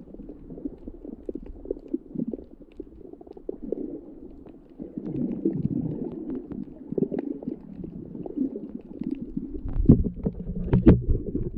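Muffled underwater sound from a camera just below the surface: low sloshing and gurgling of moving water with scattered faint clicks. It grows louder about halfway through, with a few heavier knocks near the end.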